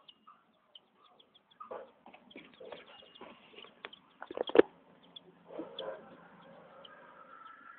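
Chickens calling softly, with scattered taps and clicks and one sharp knock about four and a half seconds in; a longer drawn-out call begins in the second half.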